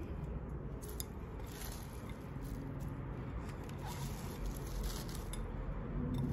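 Chopped raw cabbage tipped from a glass bowl into a stainless-steel mesh strainer and pushed out by hand: a soft rustling crunch of the leaves, with a few light clicks, over a low steady hum.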